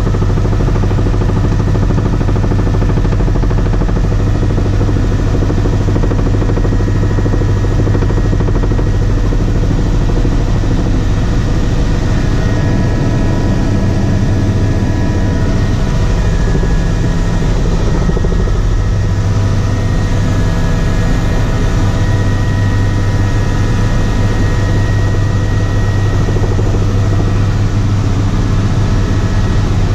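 Helicopter in level flight heard from inside the cabin: a loud, steady drone of engine and rotor, with a strong low hum and several steady higher tones above it.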